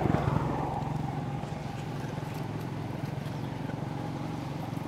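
Steady hum of a running motor-vehicle engine, loudest in the first second and then holding even.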